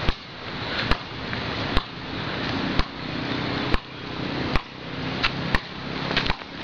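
Basketball dribbled on a hard court: about eight sharp bounces, roughly one a second, over a steady rushing background noise.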